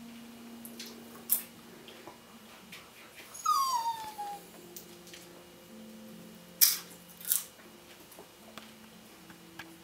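Husky giving one short whine that falls in pitch about three and a half seconds in, begging for popcorn, with a few sharp clicks scattered around it.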